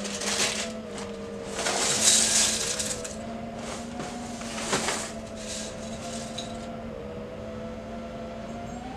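Motors and propellers of a 5-inch FPV racing quad (Lumenier LX2206 2400KV motors, 5-inch three-blade props) running steadily in flight, heard through the onboard camera's microphone. Several short gusts of rushing propeller wash and wind come over the top of it.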